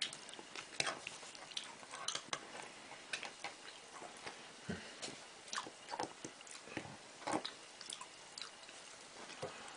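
A metal fork clicking and scraping inside a glass jar of wasabi paste: a scatter of faint, irregular small clicks.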